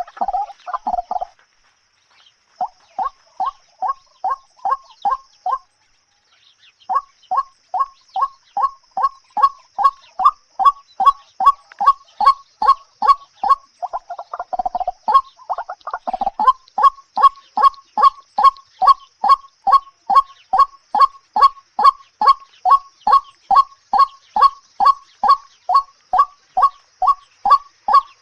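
A bird calling in a long run of short, identical notes, about two to three a second, pausing briefly twice near the start and then going on without a break. A faint, steady, high-pitched hiss lies beneath it.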